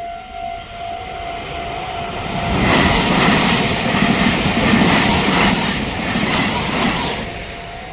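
Meitetsu limited express train passing over a level crossing at speed. A loud rush of wheel and rail noise with repeated clatter starts about two and a half seconds in, lasts about four and a half seconds, then fades. The crossing's warning bell rings steadily before the train arrives, is drowned out as it passes, and is faintly heard again near the end.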